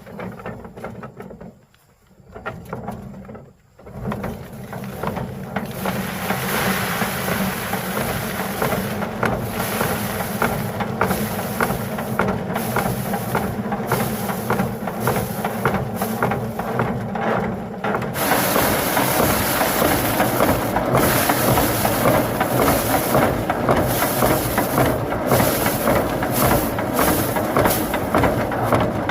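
Motorised rice threshing machine running: a steady hum under a dense rushing rattle, which starts up after a few short sounds and grows louder about 18 seconds in.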